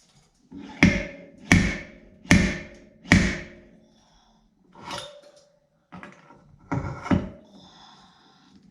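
Hammer striking steel body sheet metal to shape a tight corner: four hard, evenly spaced blows in the first half, then three lighter ones, with the metal ringing after some strikes.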